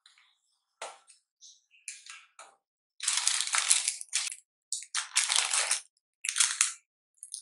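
Parchment paper crinkling and rustling in several loud bursts as it is pressed into a small cardboard box and a slice of bread is set into it, after a few short rustles.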